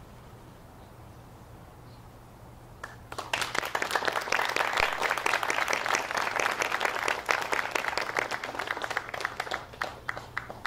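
Audience applauding. It starts suddenly about three seconds in and thins out near the end.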